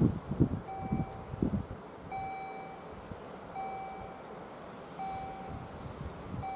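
Level-crossing warning signal beeping: a steady electronic tone about half a second long, repeating roughly every second and a half, five times. Low gusty rumbling fades out in the first second and a half.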